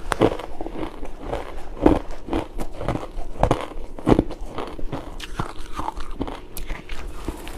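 Crunchy pink ice being bitten and chewed close to the microphone: a run of sharp, irregular crunches, about two a second.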